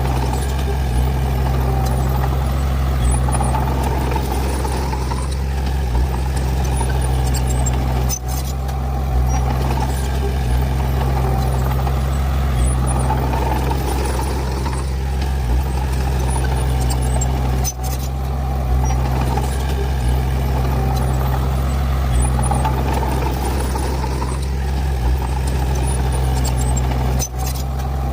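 Heavy earth-moving machine's diesel engine running steadily, a deep drone with a shifting mid-range rumble and a brief dip three times.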